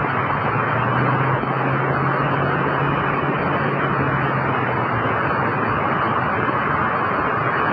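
Steady traffic noise on a wet highway: a constant hiss of tyres on the wet road, with an engine's low steady hum for a few seconds in the middle.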